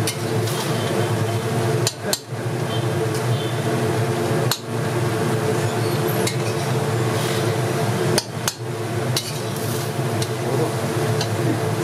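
Metal pots and cooking utensils clinking and knocking, over a steady hum.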